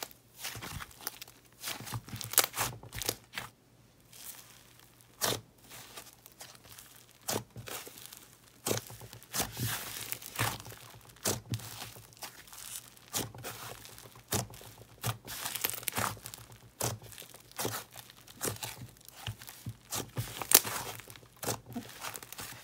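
Butter slime worked by hand, stretched, folded and squeezed, giving off irregular sizzly crackling and tearing sounds, with a few sharper pops among them.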